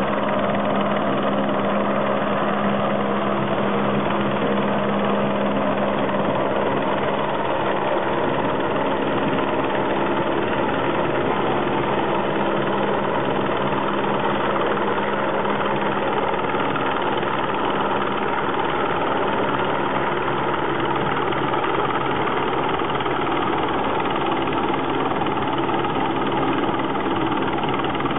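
Helicopter flying, its rotor and engine running with a steady drone that holds unchanged.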